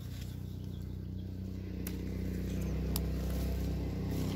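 A steady low engine hum that grows gradually louder, with a few sharp light clicks about two, three and four seconds in.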